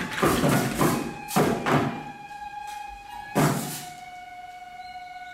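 Shishimai festival music: a handful of uneven drum beats from the lion dancers' drums over the first two seconds and one more about three and a half seconds in, with a Japanese bamboo flute holding one high note that comes through clearly after the last beat.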